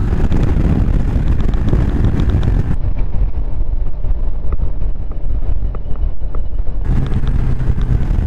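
Motorcycle engine running while riding along, mixed with heavy wind noise on the microphone. The sound turns duller for a few seconds in the middle.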